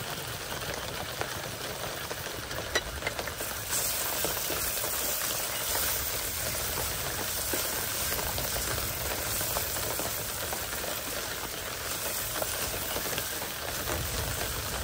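Capsicum and tomato frying with spices in a pan: a steady sizzle that grows louder about four seconds in.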